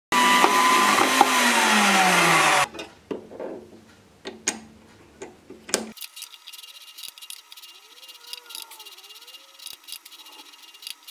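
A metal-cutting bandsaw's motor and blade winding down, the pitch falling steadily for about two and a half seconds before it stops. Then a few sharp metallic knocks and clicks, followed by faint clinks at a small metal lathe.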